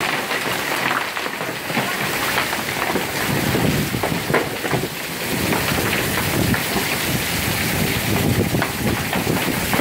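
Hail falling on a concrete patio and lawn: a dense, steady patter of many small hits.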